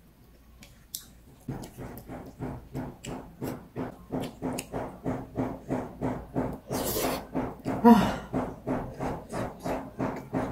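Handsaw cutting wood in regular rasping strokes, about three a second, from carpentry work going on behind the room. Near seven and eight seconds in, a couple of louder eating noises from the noodle meal break in.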